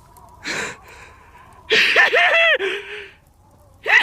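A person's sneeze build-up: a quick breath about half a second in, then a loud noisy burst about two seconds in with several short, pitched gasps, and another starting near the end.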